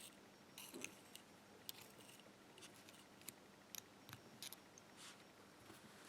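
Near silence with a few faint, scattered small clicks.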